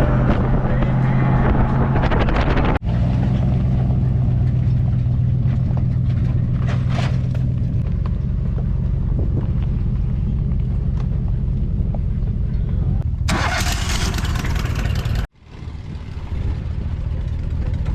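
Motor vehicle engine and road noise while driving: a steady low drone, broken by edit cuts. It dips out briefly about three seconds in, and near the end there is a couple of seconds of loud hiss that stops suddenly in a short gap before the drone resumes.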